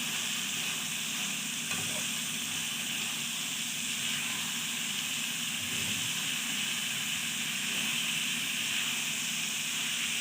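Cubed chicken breast with onion, spices and carrots sizzling steadily as it sautés in a pan.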